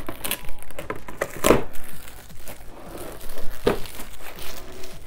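Plastic packaging crinkling and crackling as it is handled and pulled open, with two louder crackles, about a second and a half in and a couple of seconds later.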